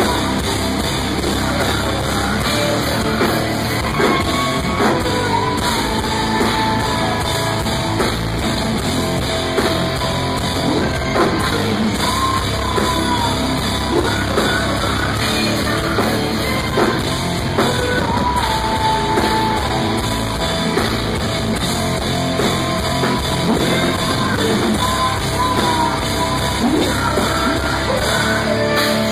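Live heavy metal band playing: distorted guitars and a drum kit under a woman's voice singing and screaming.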